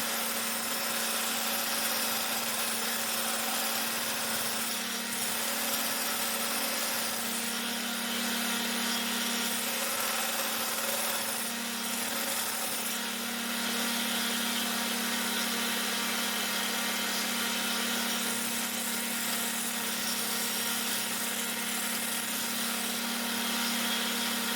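An electric workshop machine running steadily: a constant hum with an even hiss over it that does not change.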